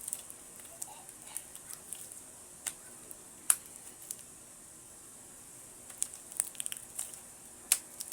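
Homemade glue-and-activator slime being kneaded and pulled by hand, giving irregular sticky pops and clicks, the loudest about halfway through and near the end. The slime is still sticky, not yet fully activated.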